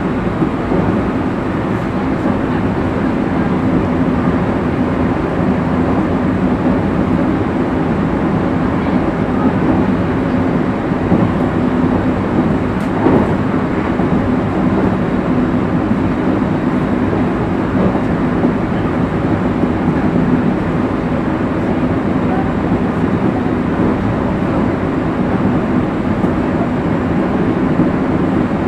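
Commuter train running at speed, heard from the driver's cab: a steady rumble of wheels on rail, with one short louder knock about halfway through.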